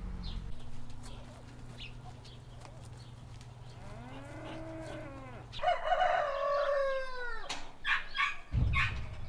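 Rooster crowing: one loud cock-a-doodle-doo of about two seconds, past the middle, that falls away at its end, just after a fainter, lower call. Short clucking calls follow near the end.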